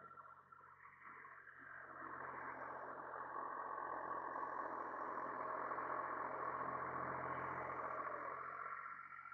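International Harvester 385 diesel tractor running under load while pulling a bush hog rotary cutter through pasture grass. The sound grows louder about two seconds in and eases off near the end.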